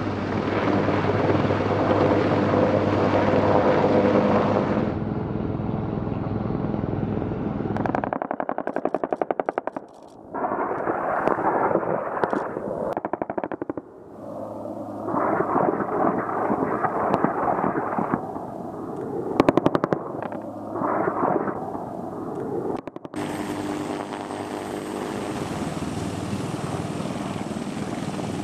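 AH-1Z Viper attack helicopter in flight, its rotor and turbine engines running steadily. From about eight seconds in, this gives way to several bursts of rapid gunfire, each a second or two long, between stretches of loud noise. The steady helicopter sound returns after an abrupt cut a few seconds before the end.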